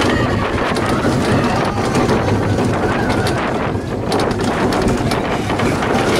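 Vekoma mine train roller coaster running along its steel track: a steady rumble with a clatter of short knocks from the wheels, and wind on the microphone.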